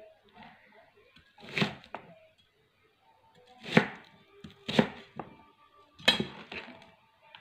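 A large kitchen knife slicing through a fennel bulb and knocking on a cutting board: four main cuts at uneven intervals, with a couple of lighter taps between them.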